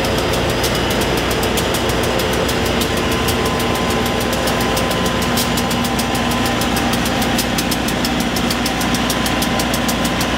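Diesel engine of a Norfolk Southern track test car idling steadily with a fast, even beat as the slow-moving geometry train comes to a stop.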